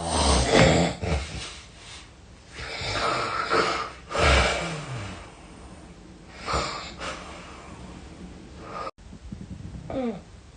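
A sleeping person snoring heavily: four loud, rough snores over the first seven seconds, then a short sound falling in pitch near the end.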